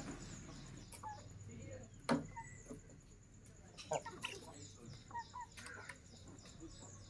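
Birds, among them chickens, making scattered short calls, with a few sharp knocks about two, four and six seconds in, over a steady low hum.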